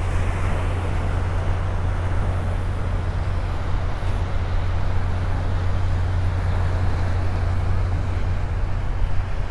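Steady low rumble of wind buffeting a phone's microphone, over an even hiss of surf breaking on the beach.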